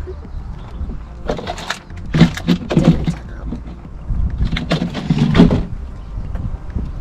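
Clattering and rustling from food and kitchen things being handled: two spells of quick sharp knocks and crackles, the first about a second in and the second about four seconds in, over a low steady rumble.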